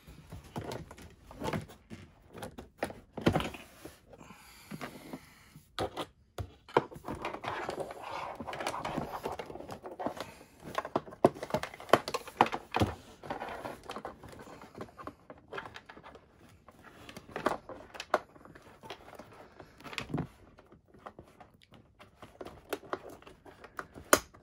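Hands working wires and connectors into a plastic Toyota Prius center console: irregular plastic clicks and knocks with rustling, a longer run of rustling in the middle, and a sharp click near the end.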